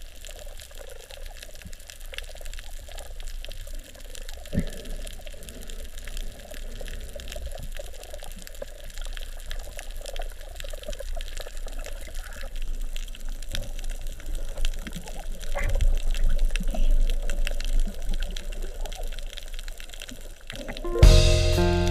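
Underwater ambience of the sea: a steady hiss with fine crackling, and louder low rumbles of moving water about two-thirds of the way through. Music comes in just before the end.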